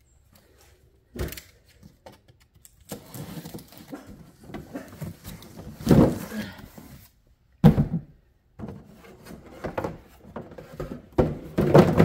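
Cardboard packaging being handled as a large Starlink box is opened: a knock about a second in, then cardboard scraping and rustling, with heavier thuds midway and the white molded insert being shifted and lifted near the end.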